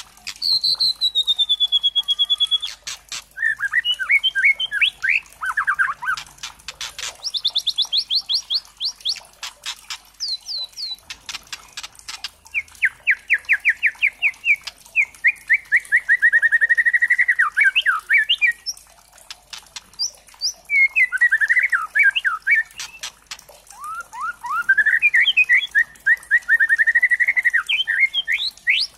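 Young white-rumped shama (murai batu trotol) singing. It opens with a long falling whistle, then moves through fast runs of repeated notes and rapid trills, broken several times by sharp clicking rattles.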